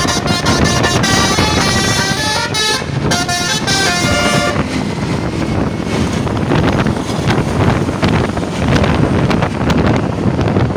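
A bus's telolet basuri musical air horn playing a tune of held notes that step up and down in pitch for about the first four and a half seconds. After it stops, wind on the microphone and vehicle noise.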